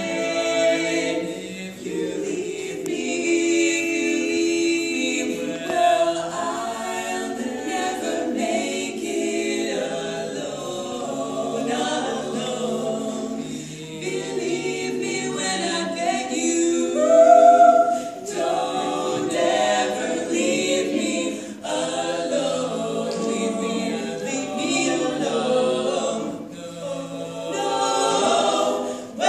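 Female vocal quartet singing a cappella in close harmony, several voices sounding together with no instruments.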